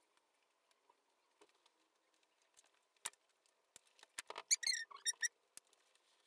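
Short vinyl squeaks and rubbing as a DXRacer gaming chair's headrest pillow is pressed onto the top of the backrest. A faint click comes about halfway through, and then a quick cluster of squeaks follows.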